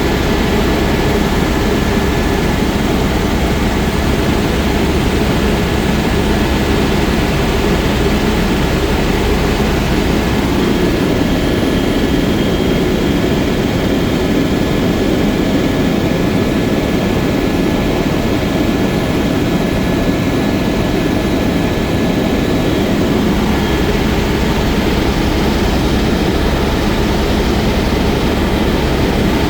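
Helicopter in flight: steady engine and rotor noise with a faint high whine.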